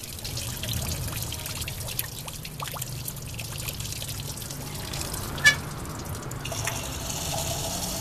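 Coolant trickling out of an open port on a 1997 Volkswagen Jetta engine as trapped air is bled from the cooling system, over a steady low hum. A single sharp click about five and a half seconds in.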